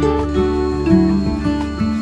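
Background music with plucked string notes.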